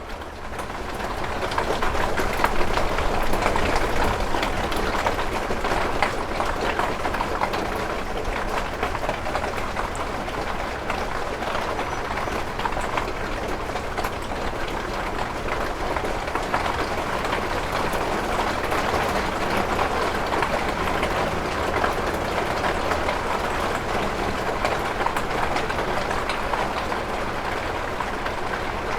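Hail pelting a window: a dense, steady clatter of countless small ice pellets ticking on the glass, swelling up over the first couple of seconds and then holding.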